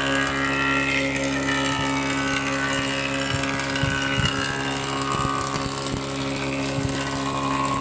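Woodworking machine running: a steady mechanical hum with a higher whine that drifts in pitch, and scattered low knocks in the middle of the stretch.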